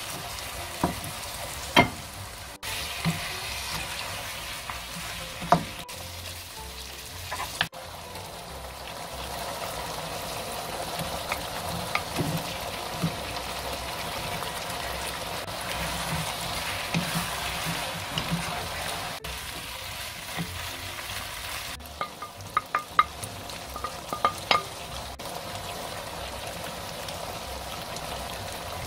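Spicy-marinated duck meat sizzling as it stir-fries in a nonstick wok, with a steady hiss throughout. Sharp knocks and clicks of wooden spatulas and of sliced potato and vegetables going into the pan come over it, several in quick succession toward the end.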